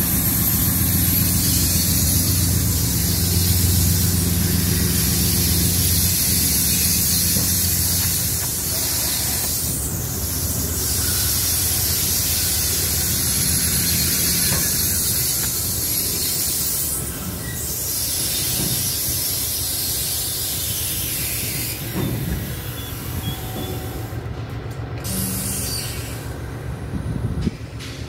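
Amtrak diesel locomotives, Siemens ALC-42 Chargers among them, rolling slowly past at close range: a low engine rumble under a loud, steady hiss. The hiss eases off a little after 20 seconds in, and the sound drops further near the end.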